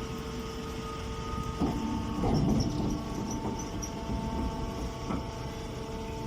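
Compression hay baler running: a steady machine hum and rumble with a few clunks.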